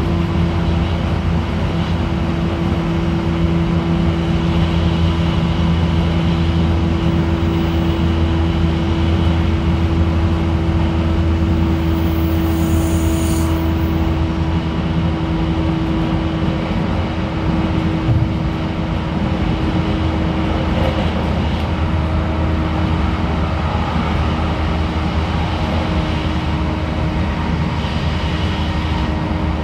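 Running sound inside an 813 series electric train's motor car at speed: a steady hum from the traction motors at a held pitch over the rumble of wheels on rail. A brief high hiss comes about twelve seconds in.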